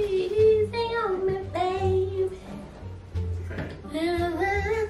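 Music: a high sung vocal line of long held notes over a repeating bass beat.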